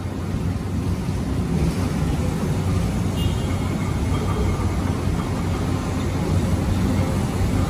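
Heavy diesel excavator engines running steadily, a low drone.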